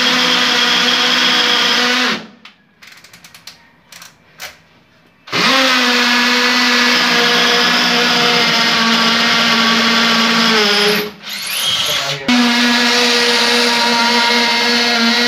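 Bosch cordless drill running with a steady whine as it bores holes into the wall. It stops about two seconds in, starts again after a three-second pause, cuts out briefly about two-thirds of the way through, then runs again.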